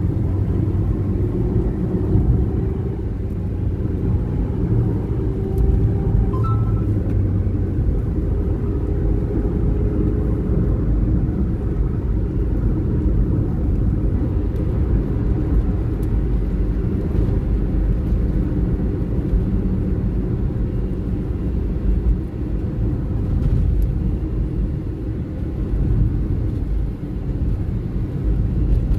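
Steady low rumble of a car driving along a paved road, heard from inside the cabin: engine and tyre noise, with no letup.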